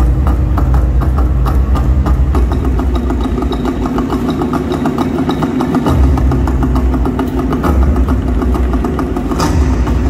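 Large barrel drums beaten in a fast, steady rhythm, with a deep booming low end that comes and goes and a sharper hit near the end.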